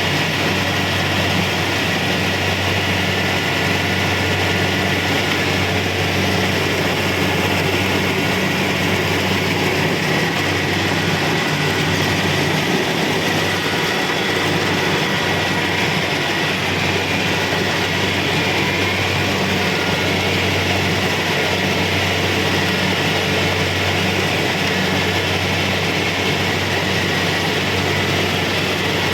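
Kubota DC-70 Pro combine harvester running steadily while harvesting: a constant diesel engine drone with a low hum under the even clatter and whir of its machinery.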